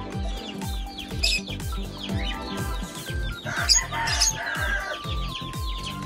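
Background music with a steady beat. Pet birds chirp briefly over it about a second in and again a little past the middle.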